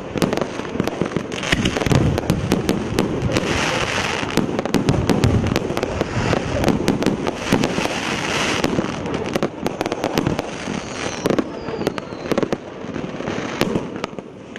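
EC131 firework battery (cake) firing: a rapid, continuous string of shots and bangs with crackling between them, thinning out in the last few seconds.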